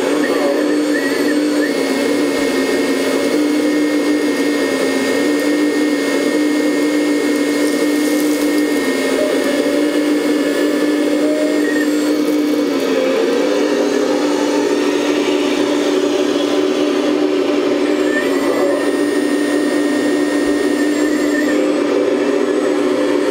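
Electric hydraulic pump of a 1/14-scale RC hydraulic excavator, whining steadily while the boom and bucket work. Its pitch dips slightly about halfway through, and fainter high-pitched whines come and go above it.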